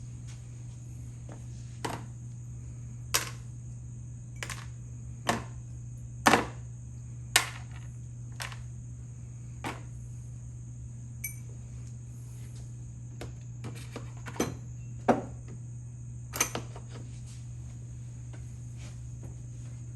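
Irregular clinks and knocks of small metal parts being handled, about a dozen separate strikes, over a steady low hum and a faint high hiss.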